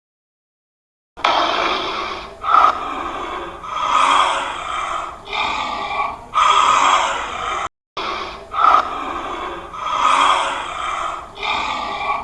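An animal giving a series of loud, rough calls, each about a second long. The same sequence of calls repeats partway through.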